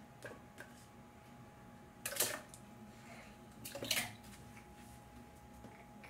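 Banana pieces dropping into a plastic blender cup, then water poured in on top: two short bursts of clatter and splashing about two and four seconds in.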